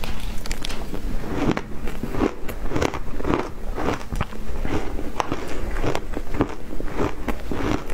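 Shaved ice being bitten and chewed close to a clip-on microphone: a rapid, irregular run of crisp crunches, several a second.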